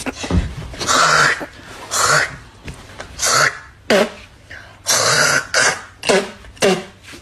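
A man's voice in a run of rasping, breathy bursts, about one a second, each ending in a short falling voiced sound, like hard laughing or sobbing into a pillow.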